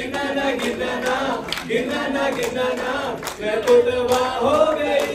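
A group of voices singing together in a chant-like tune, holding long notes.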